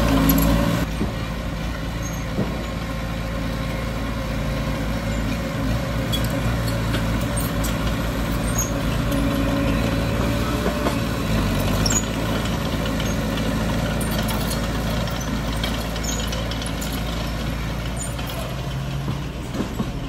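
Heavy diesel earthmoving machinery engine running steadily, with a few short knocks.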